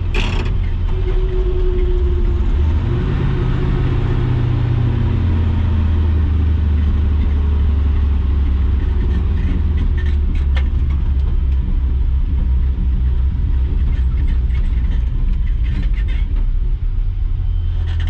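Chevrolet K30 truck's 6.0 Vortec V8 running steadily under load, a deep continuous drone; its pitch steps up about three seconds in and drops back a couple of seconds later.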